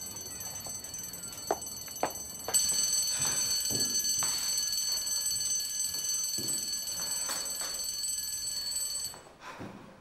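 School fire alarm ringing steadily, sounding a fire drill; it gets louder about two and a half seconds in and cuts off suddenly about a second before the end. A few light knocks come in the first couple of seconds.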